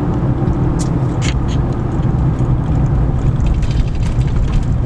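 Road and engine noise inside a moving car's cabin: a steady low rumble, with a couple of brief clicks about a second in.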